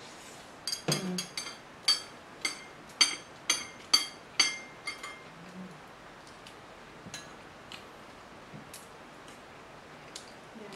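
Spoon clinking against a bowl while eating: about a dozen sharp, ringing clinks in the first five seconds, then a few faint taps.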